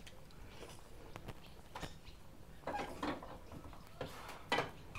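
A few faint, brief scrapes and knocks of a spoon and dishes as food and salsa are served onto a plate, the loudest near the end.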